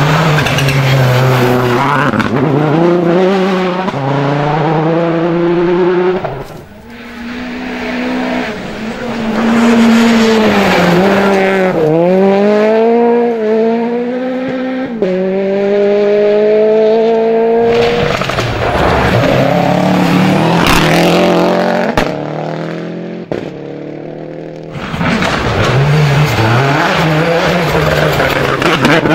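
Rally cars passing one after another at full speed on a gravel stage, among them a Mitsubishi Lancer WRC and a Citroën Xsara WRC. Engines rev hard, the pitch climbing and dropping with each gear change, with tyres sliding on the loose gravel.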